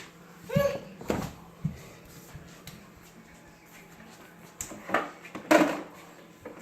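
Refrigerator door and the things inside it knocking and clattering as containers are handled, in a few separate clicks and a cluster of rattles near the end. There is a short, high vocal sound about half a second in.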